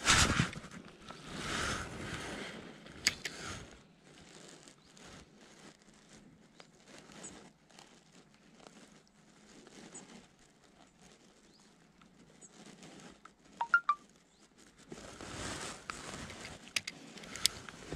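Rustling handling noise as an angler casts and retrieves with a spinning rod and reel, in loud bursts at the start and near the end with a quieter stretch between. A few sharp clicks.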